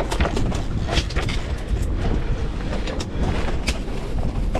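Wind rumbling on the microphone over the noise of a boat at sea, with scattered sharp clicks and knocks from fishing gear being handled on deck.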